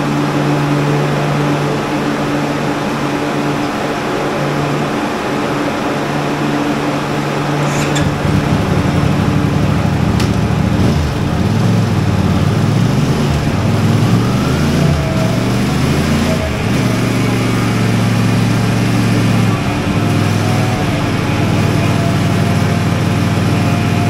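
CFMoto 450MT's parallel-twin engine running on a chassis dyno with its clutch switch bridged, so the ECU is using its clutch-in ignition timing. It drones steadily at first. From about eight seconds in, the engine's pitch rises and falls several times as revs change, then holds steady.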